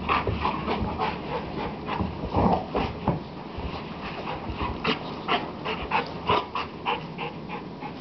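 Two dogs, a golden retriever and a short-coated red dog, play-wrestling. A quick, irregular run of short dog noises, coming several a second in the second half.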